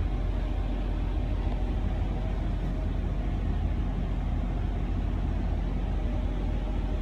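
Steady low rumble of running machinery, unchanging throughout, heard inside a vehicle's interior.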